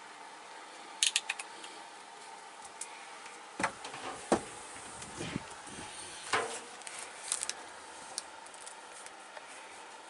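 Scattered handling noise from work inside a clothes dryer's cabinet and wiring: a quick run of sharp clicks about a second in, several dull knocks in the middle, and a few more light clicks after.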